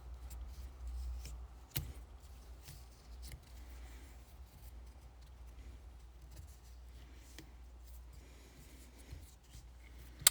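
Hands working a thick rubber seal around the outside of a power steering gear part: faint rubbing and small scattered clicks over a low steady hum, with a sharp click about two seconds in and a louder one at the very end.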